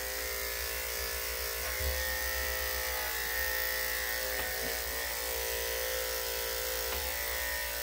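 Corded electric dog grooming clippers running with a steady hum as they are drawn down a dog's damp tail, trimming the fur.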